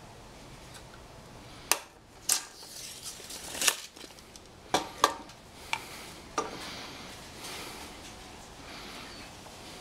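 About seven sharp clicks and knocks over a few seconds, with quieter room noise after them. They come from a tape measure, a 2x4 and a small square being handled on a miter saw's metal table.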